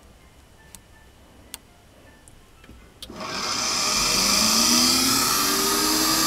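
Two light clicks, then about three seconds in a small electric motor starts and spins up: a whine that rises for a second or so and then holds steady over a strong hiss. It is the balancing rig spinning the rewound drill armature for a balance check run after a trial weight is moved.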